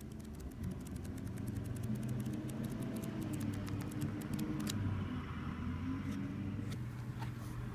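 Paper pages of a hand-held flipbook riffling off the thumb, a fast run of small paper flicks that thins to a few separate flicks near the end, over a low steady rumble.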